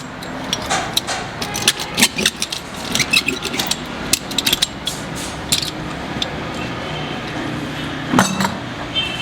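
Metal tools clicking and knocking in quick irregular strikes during tyre repair work, easing into a steady background hum with one louder knock about eight seconds in.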